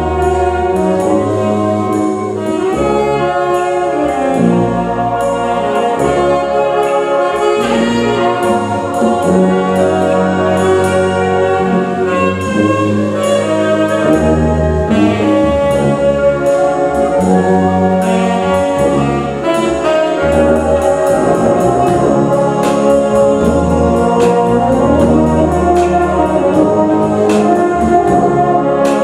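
Symphonic wind band playing a 1960s pop medley, brass to the fore over woodwinds, with a steady drum-kit beat.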